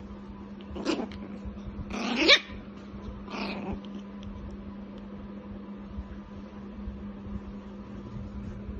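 Shih Tzu puppy barking three times in the first few seconds, the second bark the longest and loudest.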